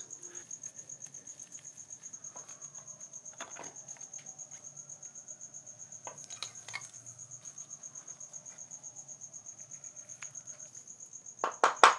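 Metal parts of a milling-head gearbox being handled: a few faint clicks, then a quick run of loud metal clinks near the end. Throughout there is a steady high-pitched chirping that pulses about five times a second.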